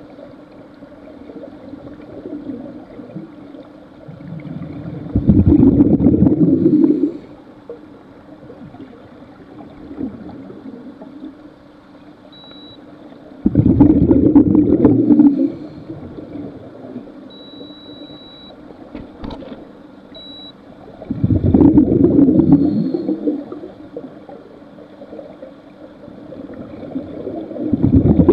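Scuba diver breathing through a regulator underwater: four rushes of exhaled bubbles, each about two seconds long and some eight seconds apart, with quieter stretches between.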